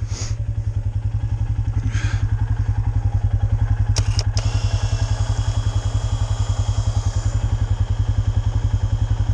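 Vehicle engine running with a steady, fast low beat, getting a little louder a couple of seconds in, while the vehicle sits stuck in a deep snow hole; two sharp clicks about four seconds in.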